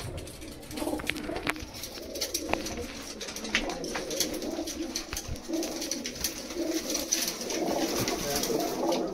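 A flock of white domestic pigeons cooing in a small loft room, several birds overlapping in a low, continuous, wavering murmur that grows louder near the end, with scattered sharp clicks from birds shifting on the perches.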